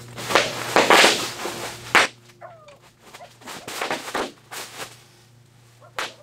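Handling noise from a Willys MB windshield frame and its rubber seal as it is lifted and stood upright: heavy rubbing and scraping at first, then lighter taps, a couple of short squeaks and a sharp click near the end, over a steady low hum.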